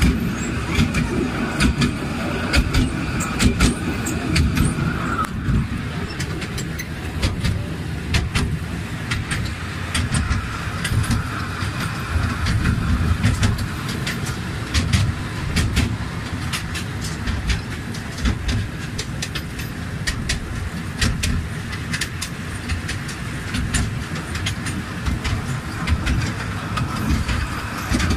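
Riding in the open carriage of a small tourist train: a steady low rumble of the moving train with frequent rattling clicks from the carriage.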